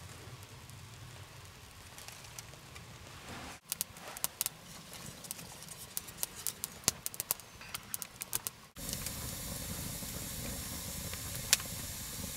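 Wood fire being lit, crackling with irregular sharp pops. After an abrupt cut, a steady hiss follows.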